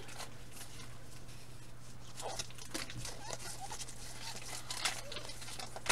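Faint rustles, slides and light clicks of a stack of football trading cards being handled and flipped through in gloved hands, over a steady low hum.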